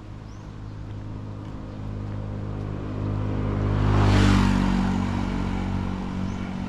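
A motor vehicle drives past, its engine hum and road noise growing to a peak about four seconds in, then fading as it moves away.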